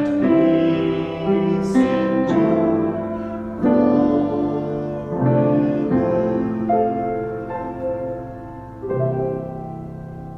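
Solo piano playing slow, sustained chords, ending on a last chord struck near the end that is left to ring and fade.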